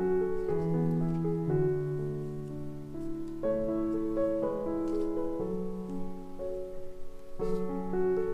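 Background piano music, with sustained notes and chords changing every half second or so.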